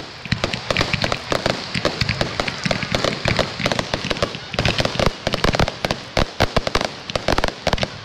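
Fireworks going off in a dense, irregular barrage of sharp bangs and crackles, many per second.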